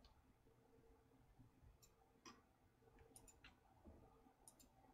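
Near silence: room tone with a few faint, brief clicks scattered through it.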